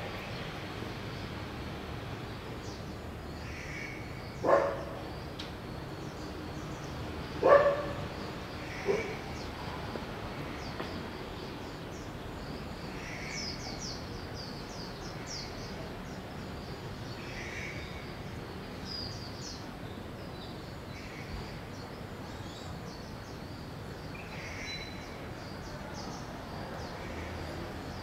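Outdoor ambience of steady background noise, with small birds chirping now and then and three short, loud animal calls in the first ten seconds, the last two about a second and a half apart.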